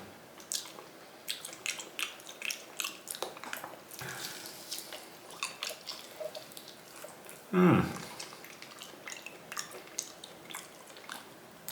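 Wet, irregular mouth clicks and smacks of a person chewing food, with one short louder voiced sound, falling in pitch, a little over halfway through.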